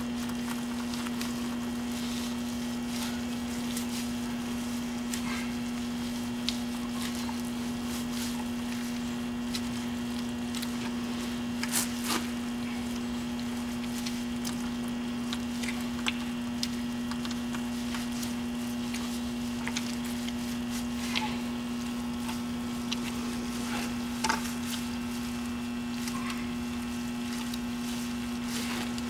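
Steady low electrical hum, with scattered soft squelches and small knocks as an oil-soaked felt journal pad is worked back and forth by gloved hands into a locomotive axle journal box.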